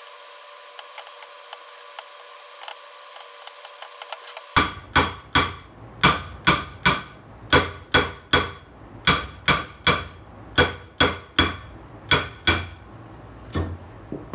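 Steel claw hammer striking a rusty old metal bench vise, a run of sharp ringing metal-on-metal blows at about two a second, knocking the vise apart, with two lighter taps near the end. Before the blows begin there are a few seconds of faint clicking.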